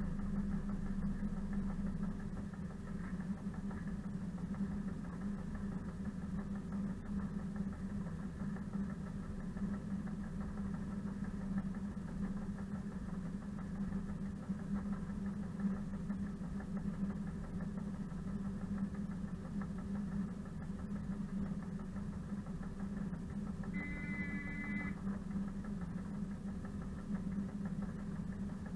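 Class 742 diesel locomotive's six-cylinder engine idling steadily with a deep, even hum. Near the end, a brief high tone sounds for about a second.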